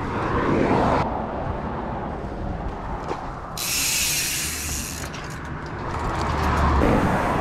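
A mountain bike being handled and wheeled into place, with a brief high hissing buzz that starts and stops sharply about halfway through and lasts around a second.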